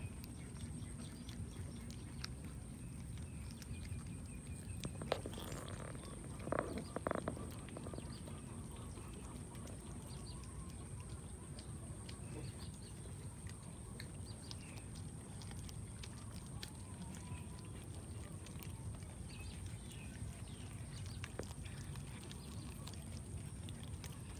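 Cats chewing and tearing raw fish, heard as scattered small clicks and crunches over a steady low outdoor rumble and a constant high whine. A short cluster of louder sounds comes about six and a half seconds in.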